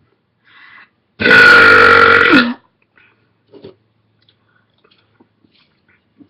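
A single long, loud belch from a person, lasting just over a second, its pitch dropping at the very end.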